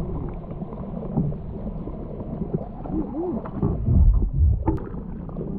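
Muffled underwater sound picked up by a camera held below the surface: a low rumble of moving water and sloshing, louder for a moment about four seconds in.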